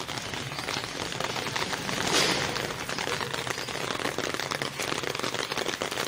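Steady rain falling on a concrete rooftop, a dense patter of drops that swells briefly about two seconds in.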